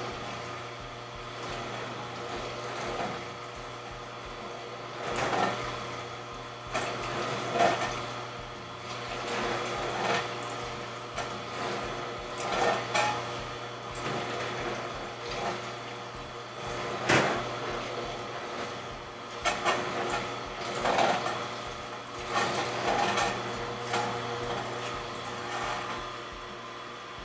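Super Angel twin-gear juicer running: a steady hum from its motor and cooling fan as the gears turn slowly, with irregular short crunches and knocks as orange pieces are pressed down the chute into the gears with a wooden pusher.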